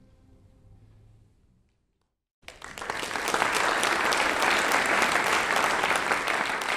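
The last held chord of a chamber ensemble dies away, then after a brief moment of dead silence an audience breaks into loud applause about two and a half seconds in.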